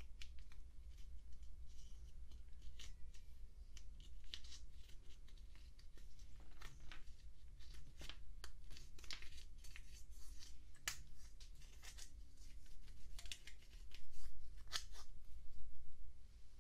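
Pressed eyeshadow powder being scraped and broken out of its pan with a thin stick: irregular crisp scratches and small crumbling clicks, coming in quick clusters.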